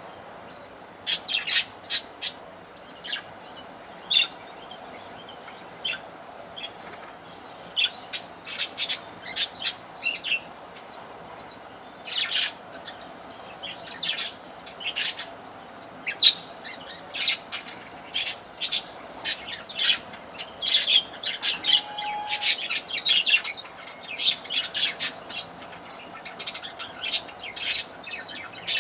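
A flock of budgerigars chirping: many short, sharp, high chirps in irregular clusters, one after another, over a faint steady background.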